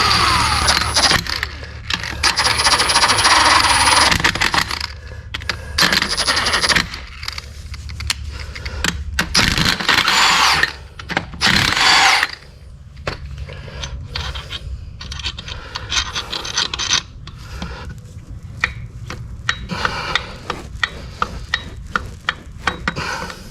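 Tool work on a diesel engine being torn down: several loud bursts of a power tool lasting a second or more each in the first half, then a run of quick metal clicks, clinks and scrapes.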